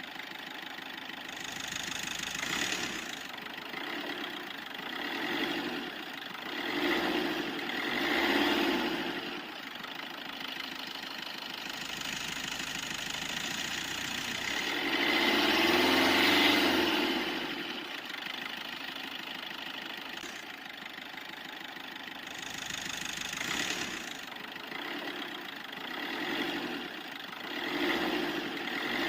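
Car engine sound that rises and falls in repeated revs every few seconds, with the longest and loudest rev about halfway through.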